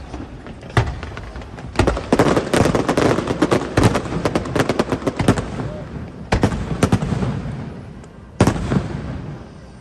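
Aerial fireworks bursting: separate loud bangs, then a dense run of rapid bangs and crackles in the middle, then a few more single bursts, each trailing off.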